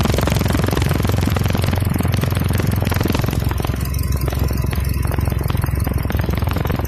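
Diesel engine idling with a steady, rapid clatter and a low rumble, its accessory belt drive turning.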